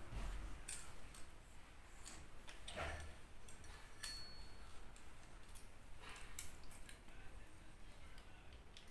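Faint scattered clicks and light metal scrapes of small hand tools on the rocker arms of a Suzuki Zebra Espass cylinder head as its valve clearances are set, with one brief high metallic ring about four seconds in.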